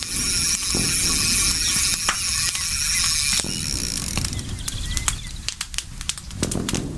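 Campfire burning: a steady hiss, then from about halfway in, frequent sharp crackles and pops.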